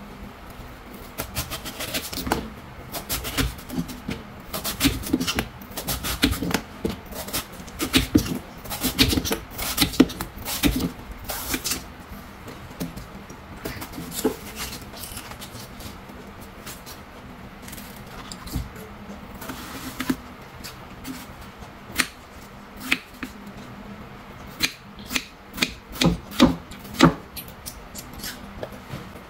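A kitchen knife cutting a watermelon on a wooden cutting board: rasping strokes as the blade shaves off the rind, and sharp taps of the blade on the board. The cutting is busiest in the first ten seconds or so, then comes as separate taps, with a quick run of them near the end as the flesh is cut into cubes.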